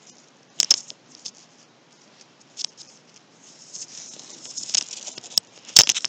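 Soft rustling and a few scattered clicks and taps from someone shifting close to the microphone, over a faint hiss, with the loudest cluster of clicks near the end.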